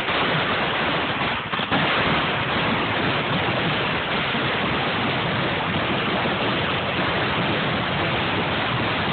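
Ground-level firework fountains spraying sparks up close: a loud, steady rushing hiss that holds without a break.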